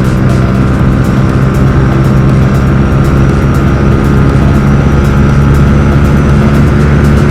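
Yamaha R15 V3's single-cylinder engine running through an aftermarket R9 exhaust while riding, its exhaust note holding at a steady pitch.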